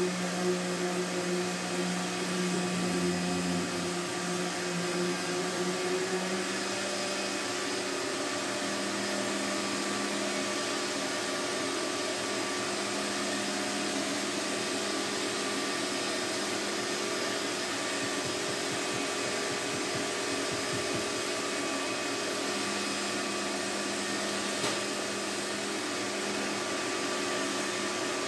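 Shop vacuum motor running steadily, a constant whine with several steady hums under it.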